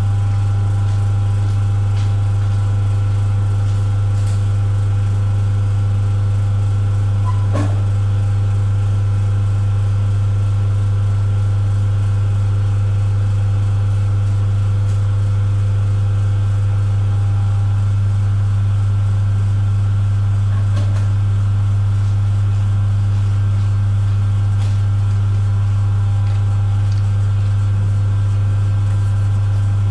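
Steady, unbroken hum inside a train's driving cab, a strong low drone with several fainter higher tones over it. A faint click comes about seven and a half seconds in.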